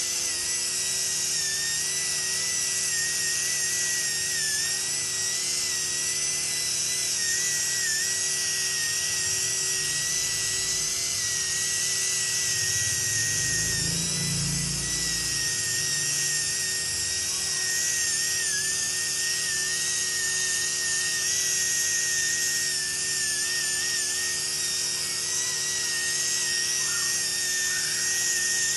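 Right-angle polishing handpiece running at high speed against the steel mold cavity, a steady high whine that wavers slightly in pitch as it works.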